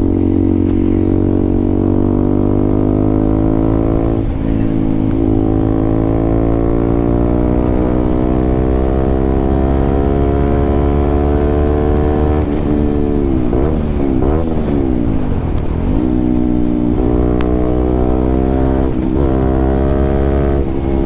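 KTM RC 200's single-cylinder engine running loud through an aftermarket SC Project exhaust as the bike is ridden. The engine note climbs slowly, then drops and rises a few times around the middle before settling steady.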